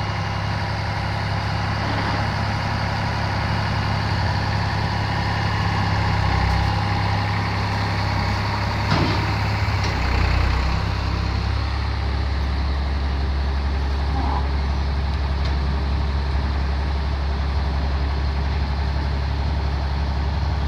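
Tractor engine running steadily while driving a concrete mixer through its power take-off, the mixer drum turning. The low engine note shifts slightly about ten seconds in.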